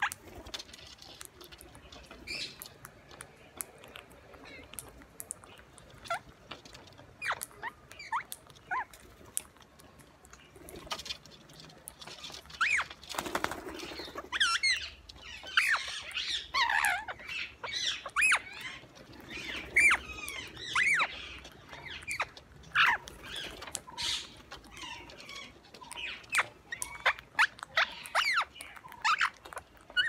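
Rose-ringed parakeets feeding on grain: a steady run of sharp clicks and taps as they crack seeds and peck on concrete. Short calls join in around the middle, with a brief rustle a little before them.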